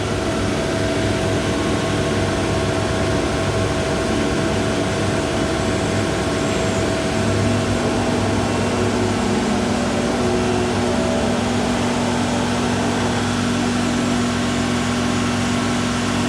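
CNC router machining a wooden chair seat: a steady machine hum and hiss with a few held tones, one of which comes in about halfway through.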